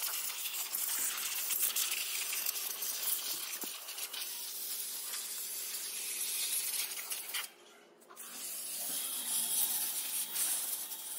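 Compressed-air blow gun hissing as it blows dust out of a car's engine bay and front grille, then out of the paper air filter element during a routine service. The air cuts out briefly about seven and a half seconds in, then hisses again.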